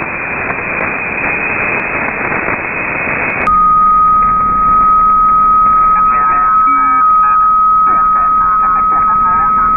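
Shortwave radio reception on a receiver in upper-sideband mode: a noisy hiss of static and a weak, fading signal. About a third of the way in the sound changes abruptly as the receiver is retuned, and a steady high whistle (a heterodyne) sets in and continues. Faint warbling interference comes and goes near the end.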